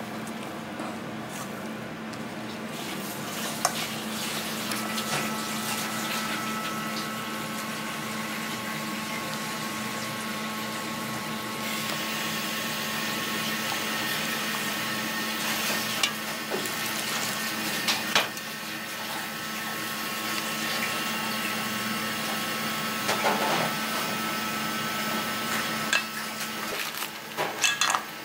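Wooden chopsticks stirring wet tempura batter in a stainless steel bowl: a continuous sloshing scrape with a few sharp clicks of the sticks against the bowl, more of them near the end, over a steady low hum.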